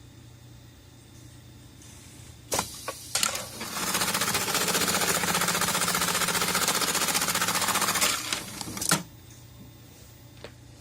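JUKI AMS-210E computer-controlled pattern sewing machine cycling: a few sharp clacks about two and a half seconds in, then about four seconds of fast, steady stitching, ending in a short clatter and a last loud clack.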